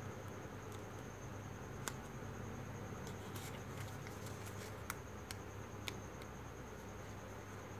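Faint crackles and clicks of stiff folded paper units being handled and tucked into one another, with a few sharper clicks about two, five and six seconds in. Under them runs a steady low hum and a thin, steady high-pitched tone.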